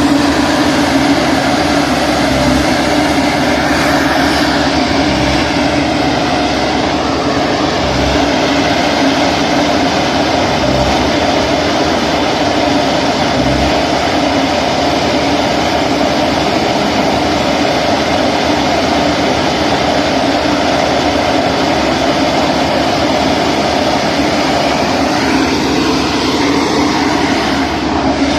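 Electric-motor concrete mixer pump running steadily with a loud mechanical hum. Short low thumps come about every three seconds during the first half.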